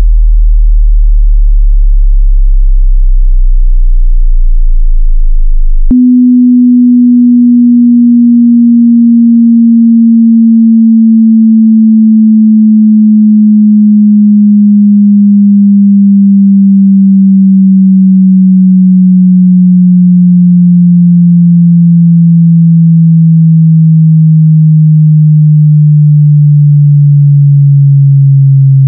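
Sine-wave crossover test tones. A very deep hum from the bass sweep cuts off with a click about six seconds in. A higher pure tone then takes over and slowly glides down in pitch, swelling and dipping about every three seconds.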